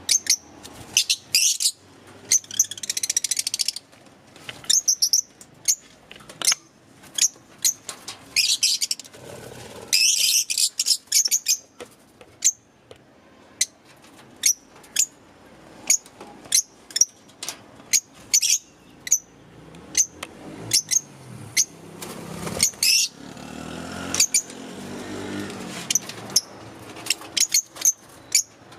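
Fischer's lovebirds chirping: a running string of short, sharp, high-pitched calls, a few each second, breaking now and then into denser bursts of chatter.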